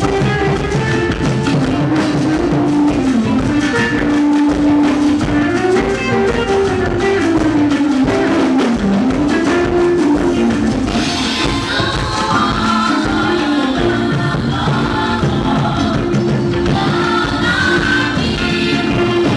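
Music with drums and singing, the singing growing fuller about halfway through.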